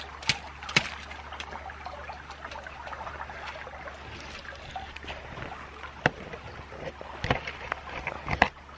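Wire-mesh minnow trap being handled on creek gravel, giving scattered sharp clicks and rattles near the start and a cluster near the end, over the steady trickle of the creek.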